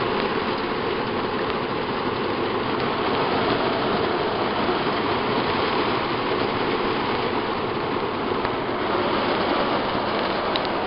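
Heavy rain, a steady rushing downpour.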